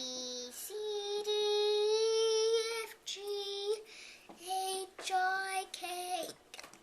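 A young child's voice singing drawn-out notes, one held for about two seconds, then several shorter notes after a brief pause.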